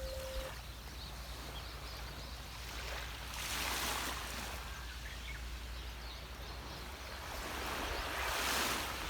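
Waves washing up on a beach, swelling twice, at about three and a half and eight seconds in, over a steady low rumble. A steady 528 Hz sine tone stops about half a second in.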